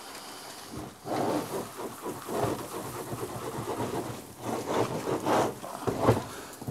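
Irregular rustling and scuffing of handling noise as the camera is jostled and moved about, starting about a second in with several louder bursts.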